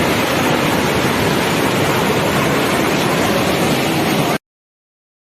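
Steady rush of a waterfall, a loud even roar of falling water that cuts off abruptly to silence a little over four seconds in.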